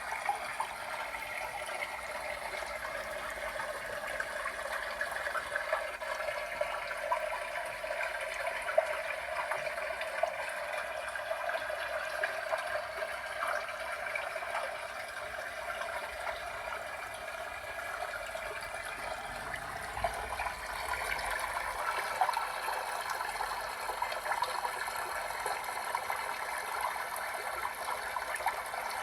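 Tabletop decorative waterfall fountain: water falling and splashing steadily.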